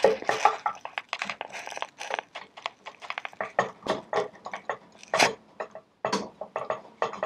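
Long screwdriver turning the stock screw deep inside a Catamount Fury shotgun's hollow plastic buttstock: an irregular run of clicks and scrapes, pausing briefly near the end.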